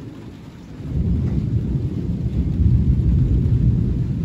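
Thunder rumbling: a deep roll swells about a second in and stays loud, over a faint steady hiss of falling rain.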